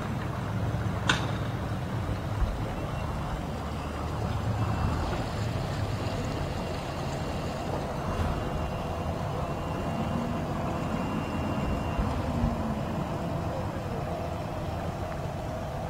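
Outboard motor of a center-console boat running at slow idle speed, a steady low rumble that swells slightly near the end. A sharp click about a second in and faint, broken high beeps in the middle.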